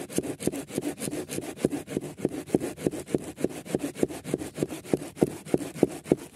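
Bahco Laplander folding pruning saw cutting through a thick log, in quick, even back-and-forth strokes at about three a second.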